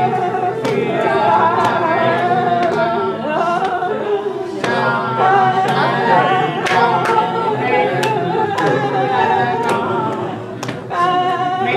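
Singing with musical accompaniment, with a steady beat about once a second.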